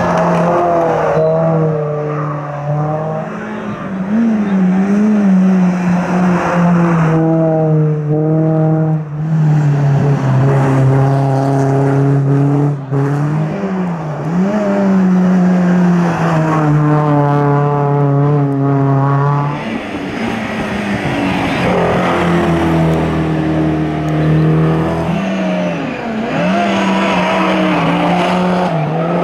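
Hill-climb race car engine running hard at high revs, its pitch holding steady for a few seconds and then jumping abruptly with each gear change, several times over.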